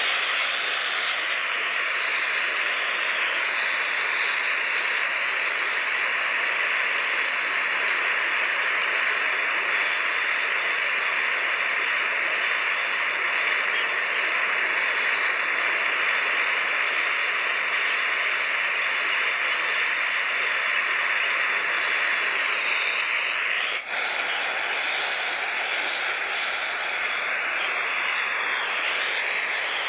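Hot oil sizzling steadily as breaded pieces of food deep-fry in a small camping pot.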